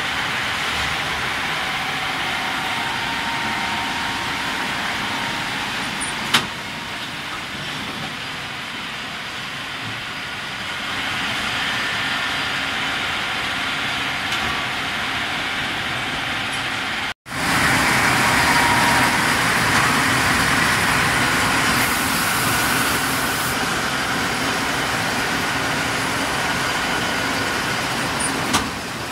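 Wickman six-spindle automatic bar lathe running, a steady mechanical drone of spindles and drives with coolant. A sharp click about six seconds in, a momentary dropout at about seventeen seconds after which it is louder, and another click near the end.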